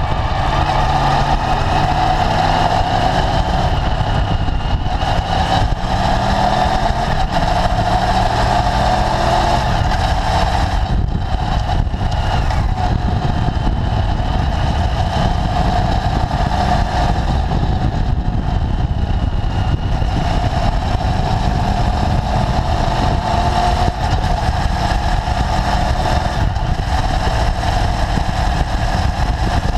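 Motorcycle engine running at road speed, heard through a low-mounted action camera, its pitch rising and falling with the throttle under steady wind rush and road noise.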